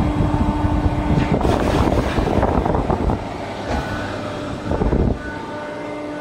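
Hydraulic shearing machine running: a steady motor hum, with a louder stretch of rushing, rattling noise over the first few seconds and a short burst about five seconds in.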